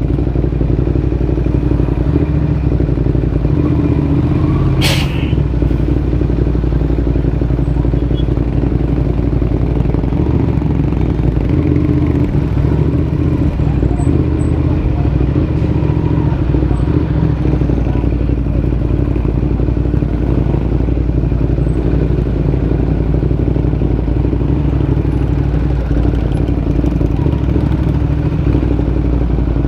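Ducati motorcycle engine running steadily at low road speed, heard from the rider's helmet, with one sharp click about five seconds in.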